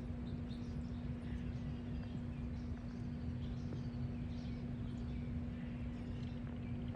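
Small birds chirping in short, scattered calls over a steady low rumble and a constant hum.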